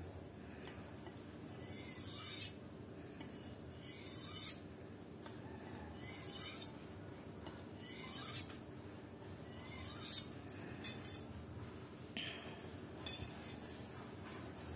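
A Birge kitchen knife blade drawn along a Maestro Masat Balkan sharpening steel in five slow strokes about two seconds apart, each a short, bright metal-on-metal scrape. The steel is being used to work off the burr rolled over on the knife's edge. A few faint ticks follow near the end.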